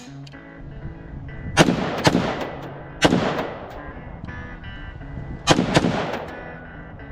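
Semi-automatic rifle shots from a Colt 6940 AR-15 firing 5.56 mm green-tip ammunition: about five shots at uneven spacing, a pair about a second and a half in, one about three seconds in and a close pair near five and a half seconds. Each crack trails off in a long echo. Background music plays underneath.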